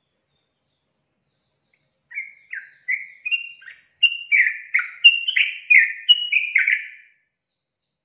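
Yellow-vented bulbul singing: a bubbly run of short, clear notes, many dipping in pitch, in quick phrases that start about two seconds in and stop about a second before the end.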